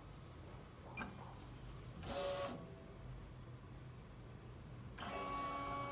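Teneth T24L cutting plotter's motors driving the carriage and paper between registration marks while the optical eye scans them: a short motor whine about two seconds in and a longer one starting about five seconds in, over a low steady hum, with a small click about a second in.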